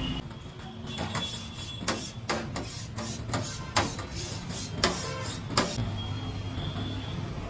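Sharp clinks and knocks of a steel ladle working in a steel bowl and of utensils and cups on a steel counter, about one every half second from about two seconds in until about five and a half seconds in, over a steady low hum.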